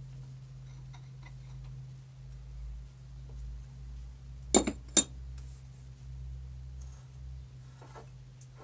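Two sharp metallic clinks about half a second apart, midway through, from steel tools being handled at an old lathe's chuck and slide, over a steady low hum. Fainter small tool rattles come before them and again near the end.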